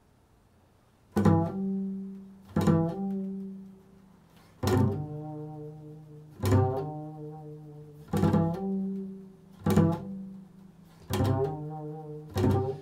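Upright double bass played pizzicato in a slow improvisation: about eight single plucked notes, starting about a second in, each struck firmly and left to ring out and fade before the next.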